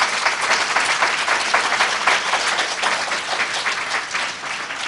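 An audience applauding: many hands clapping together, easing off slightly near the end.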